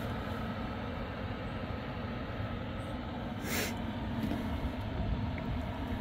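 Small 800-watt electric travel kettle rumbling steadily as its half litre of water heats close to the boil. A short sharp rustle comes about three and a half seconds in.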